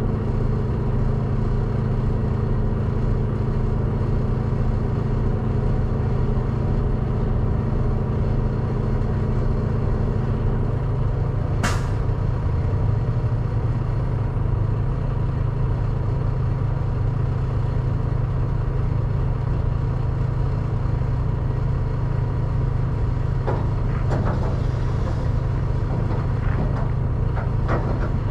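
Diesel semi truck idling: a steady low rumble, with a higher hum that drops out about eleven seconds in and a short sharp click just after.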